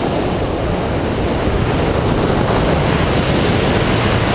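Steady, loud wind rushing over the microphone of a pole-mounted camera as a tandem paraglider flies through the air.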